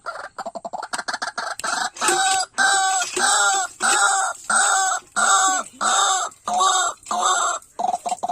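White-breasted waterhen calling: quick chattering clicks, then from about two seconds in a run of loud, evenly repeated croaking notes about two a second, going back to quick clicks near the end.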